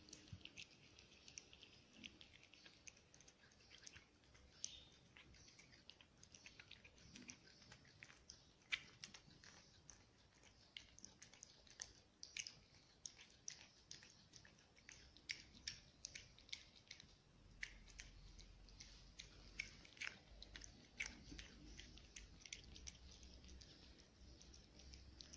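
A cat chewing and licking up small pieces of soft food from a plate, close up: a faint, irregular run of small wet clicks and smacks from its mouth.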